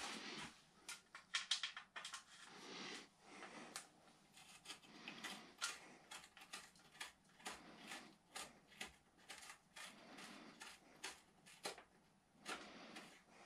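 Faint, irregular clicking and rustling of hands handling bicycle cables and cable housing.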